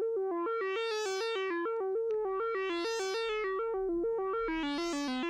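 Moog Werkstatt-01 analog synthesizer stepping through a sequenced pattern of notes, several a second. Its tone brightens and darkens in a slow filter sweep about every two seconds.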